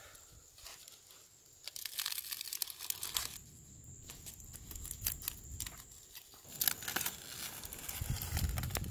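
Crumpled aluminium foil packet being cut and pulled open with a knife and fingers, crinkling and tearing in repeated bursts that start about two seconds in.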